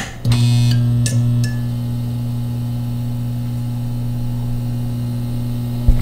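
Electric light buzzing: a click, then a loud low electrical hum switches on with some crackling in its first second or so and settles into a steady buzz, until a sharp click near the end cuts it off.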